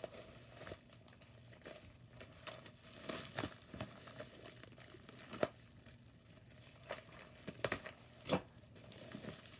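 Bubble wrap and plastic wrapping crinkling and rustling as wrapped packages are handled. The crackles come irregularly, with a few louder ones.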